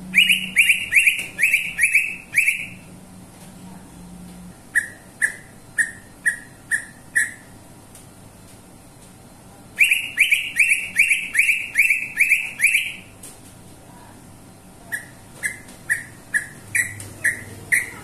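A greater green leafbird (cucak ijo) singing: two loud runs of quickly repeated, clear whistled notes, each lasting two to three seconds. Each run is followed by a quieter, more widely spaced series of shorter notes.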